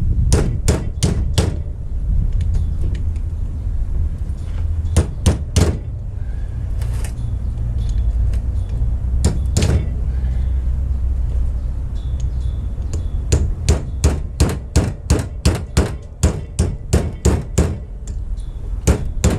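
Hammer strikes on a tool being driven in to work the old grease seal out of a 14-bolt 8-lug axle hub. A few scattered groups of blows, then a quick even run of about three blows a second near the end.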